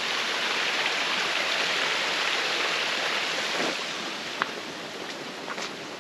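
Running water of a small stream splashing, an even hiss that eases off after about three and a half seconds, with one sharp click a little later.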